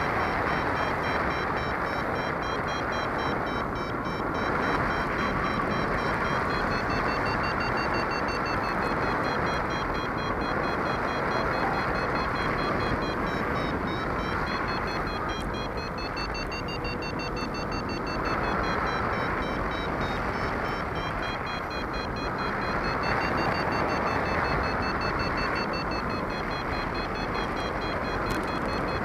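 Steady wind rush over the microphone in flight, with a paragliding variometer beeping in quick pulses above it, its pitch slowly rising and falling as the climb rate changes. The beeping is the variometer's signal that the glider is climbing in lift.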